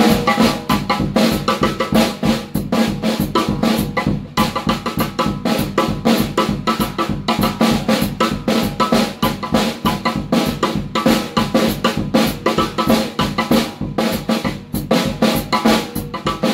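Drum kit played with sticks: busy snare strokes and accents over a steady bass drum pulse, played as a syncopation reading exercise in jazz comping style.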